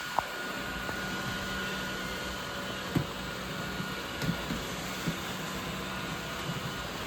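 Several robot vacuum cleaners running together: a steady whirring hum with a few short knocks.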